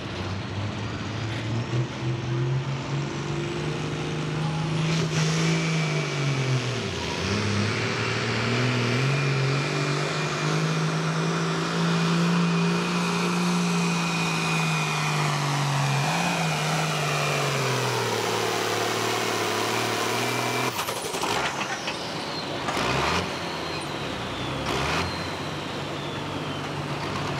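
Altered Farm class turbo-diesel pulling tractor with a Borg Warner S300 turbo running hard down the track, its engine pitch sagging and recovering twice as it lugs against the sled, with a steady high turbo whine over it. About 21 seconds in the engine note drops off abruptly and the turbo whine falls away as the run ends.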